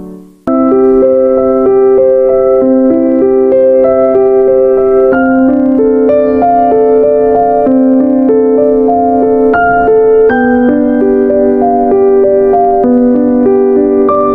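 Background music: one piece fades out, and about half a second in a keyboard tune starts, a melody of sustained notes over a steady lower part.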